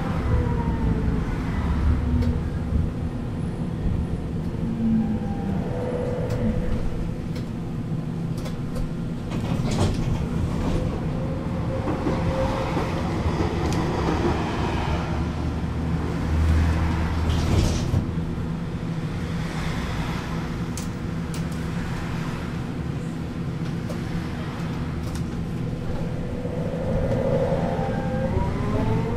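Duewag R1.1 low-floor tram heard from inside: its traction drive whine falls away as it slows in the first second, then a steady hum with scattered clatter as it stands, and near the end the whine rises again in pitch as the tram pulls away.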